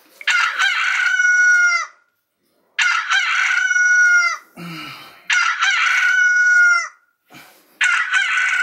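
A rooster crowing four times in a row, evenly spaced about two and a half seconds apart, each crow long and dropping in pitch at its end.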